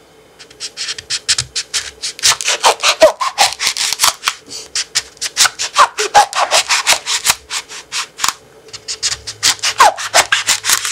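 Small kitchen knife sawing back and forth through the tough rind of a passion fruit on a wooden cutting board: quick scratchy strokes, several a second, with a brief pause near the end.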